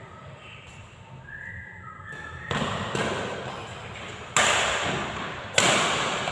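Badminton rackets striking the shuttlecock in a rally: three sharp hits, about two and a half seconds in, at about four and a half seconds, and near the end, each trailing off in the hall's echo.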